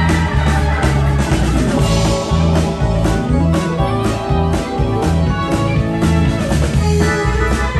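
Live rock band playing: drum kit and guitar over Hammond organ and a steady, repeating bass line.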